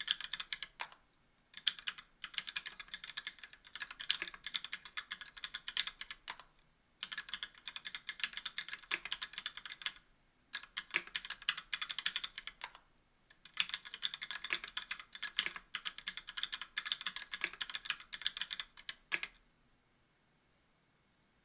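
Fast typing on a mechanical keyboard with stock Gateron Black linear switches in an aluminium-plate Tofu60 case: dense, rapid key clacks in runs of a few seconds with brief pauses, stopping near the end.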